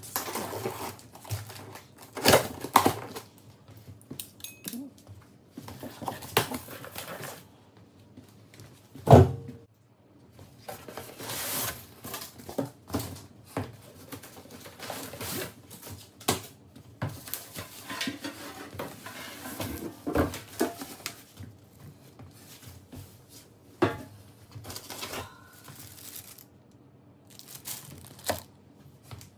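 Cardboard box being unpacked: packing tape torn open, flaps folded back, bubble wrap crinkling, and metal rotisserie parts clinking, with a sharp knock about nine seconds in.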